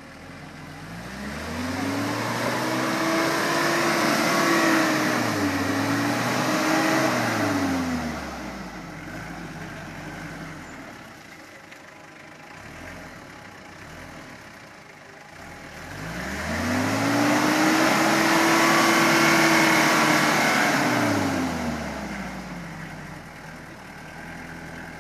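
Mitsubishi Triton L200 pickup's engine revving up and dropping back twice: the first time with a brief dip and second rise in the middle, the second a single climb held a few seconds before falling away. Between the two, the engine runs quietly.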